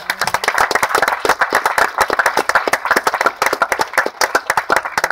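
Audience applauding: many people clapping at once, with sharp single claps from seats close by standing out.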